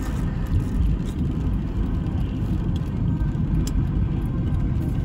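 Steady low rumble of a car heard from inside its cabin on a rainy day, with a few faint ticks of raindrops hitting the windshield.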